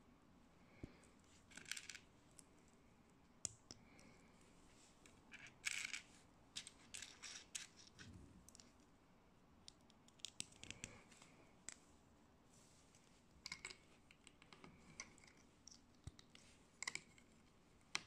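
Small plastic Sembo building bricks clicking and clattering as they are handled and snapped together, in scattered short clicks with quiet gaps between.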